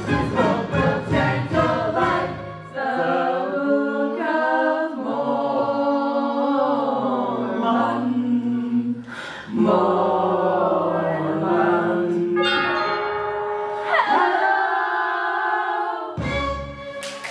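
A small mixed cast singing together in a musical-theatre ensemble number, ending on a long held chord near the end.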